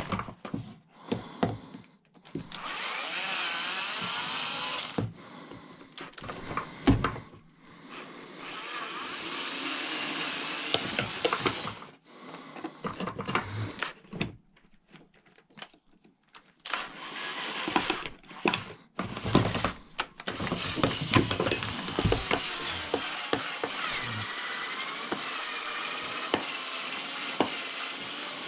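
Handheld power tool running in three long bursts with a wavering whine as it works into cast aluminum scrap. Sharp knocks and clatter of metal pieces come between the bursts.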